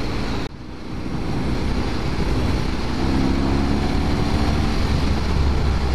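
Motorcycle engine pulling uphill, heard under heavy wind rush on a handlebar-mounted camera's microphone. The sound drops out briefly about half a second in, then builds back, and a steady engine tone comes through the wind in the second half.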